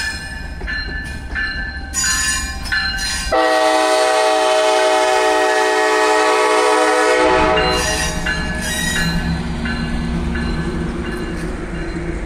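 A warning bell rings about twice a second as a passenger train rolls slowly past. About three seconds in, the train's horn sounds one long, loud blast of several tones for about four seconds. The bell then rings again over the low rumble of the passing train.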